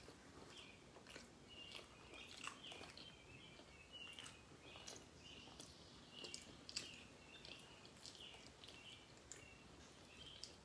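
Faint chewing with soft mouth clicks as a cookie brownie is eaten, over a background of faint, short, high chirps repeated every second or so.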